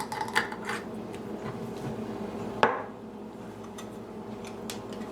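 Kitchen utensils and a cooking pot being handled: light clinks and taps, with one sharper knock about two and a half seconds in.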